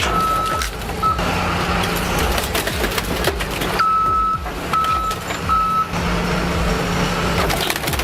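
A heavy machine's backup alarm beeping, a single high tone sounding twice near the start and three times a little past the middle, over a loud diesel engine and the noise of crushing scrap.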